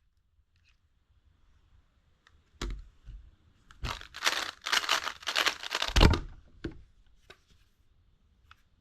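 A Skewb twisty puzzle turned very fast in a speedsolve: a dense run of plastic clacking lasting a little over two seconds, ending in a sharp thump. A single knock comes just before the turning, and a few loose clicks follow it.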